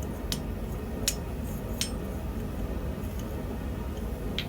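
A few light, sharp clicks over a steady low hum.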